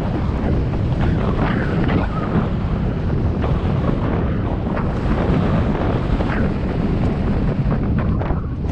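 Wind buffeting an action camera's microphone as a mountain bike rolls quickly along a dirt trail, with a steady rumble of tyres on dirt and frequent short clicks and rattles from the bike over bumps.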